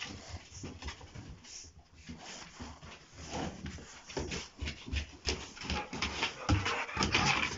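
Two rottweilers playing, scuffling with irregular thumps and paw scrapes on a concrete floor, louder near the end.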